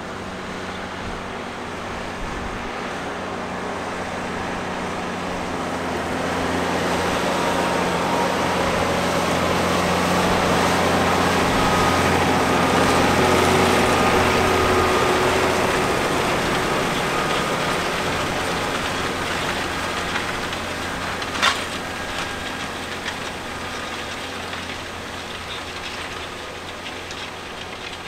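Case Puma tractor's diesel engine working steadily under load as it pulls a reversible plough through the soil. It grows louder as it passes close by, then fades as it moves away. A single sharp knock comes about three-quarters of the way through.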